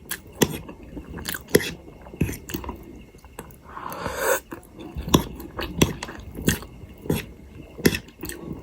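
A person chewing a mouthful of potato-filled momo close to the microphone, with sharp wet mouth clicks about once or twice a second and a short rustle or breath about four seconds in.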